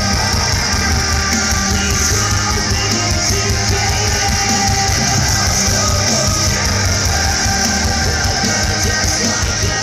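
Live rock band playing at full volume through a festival PA, with electric guitar, bass and drums, heard from within the crowd in front of an open-air stage.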